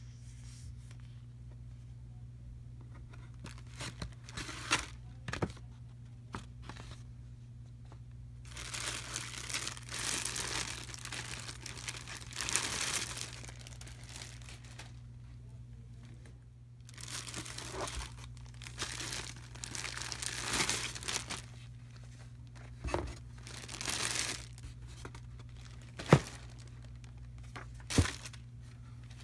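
Clear plastic shoe bag crinkling and rustling as a pair of boots is unwrapped in a cardboard shoebox, in two long spells of handling. Two sharp knocks near the end are the loudest sounds.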